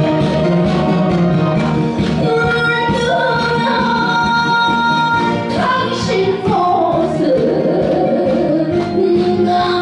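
A woman singing a Korean song into a handheld microphone, amplified, over instrumental accompaniment with long held melody notes.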